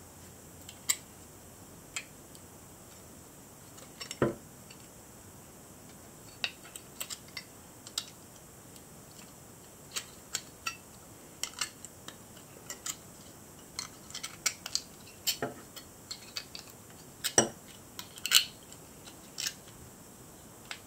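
Small pliers working a scale cut from tin-can metal, bending down its corners: a scatter of short, sharp metallic clicks and taps at irregular intervals, with a few louder knocks about four seconds in and again near the end.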